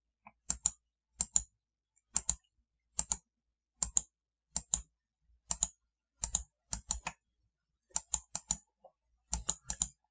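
Computer mouse button clicking over and over, in quick press-and-release pairs roughly once a second.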